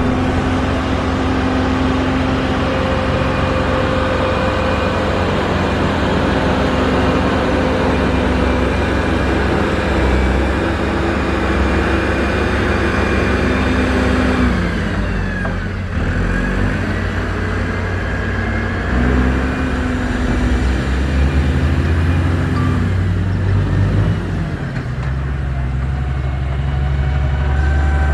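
Heavy construction machine's diesel engine running steadily under load. About halfway through, its pitch drops and comes back up.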